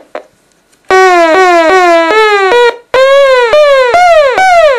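Homemade Beep Poet tin noise maker played through a small guitar amp, making its pitch release effect: about a second in, a quick run of buzzy electronic beeps starts, each one dropping in pitch as it ends, with a brief break near the middle.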